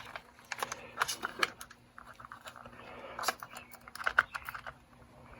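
Scattered plastic and metal clicks and knocks as a tape is handled and fitted back into a vintage Dictaphone player, with several sharper clicks about a second in, past three seconds and near four seconds.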